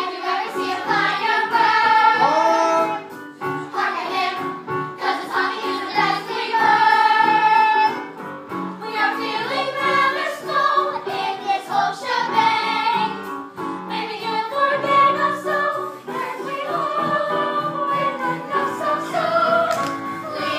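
Music with a choir singing in phrases of a few seconds.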